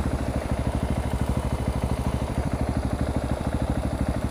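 Husqvarna 701 Supermoto's big single-cylinder engine running steadily at low revs, a rapid even thumping beat through an exhaust with its dB killer removed.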